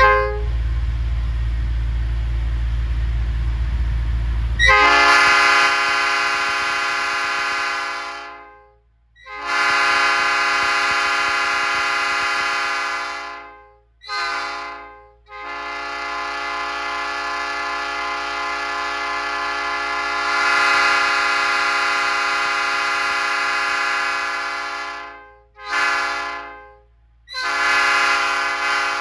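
Multi-chime railroad air horn blown six times, a chord of several notes, with three long blasts, two short toots and a final blast that runs on. For the first five seconds before the horn there is a loud low rumble.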